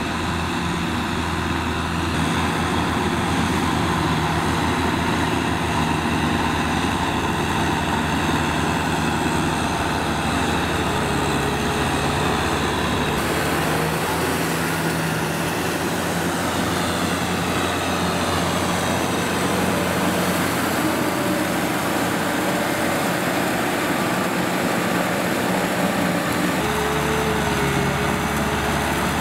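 Kubota M6040SU tractors' four-cylinder diesel engines running steadily under load while pulling cultivators through deep mud. The sound changes abruptly about halfway through and again near the end.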